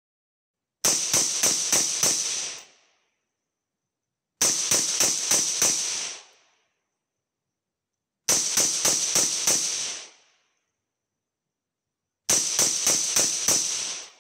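Suppressed rifle fired in four quick strings of five shots, about four shots a second, each string ending in a short tail. The strings come about four seconds apart with silence between them.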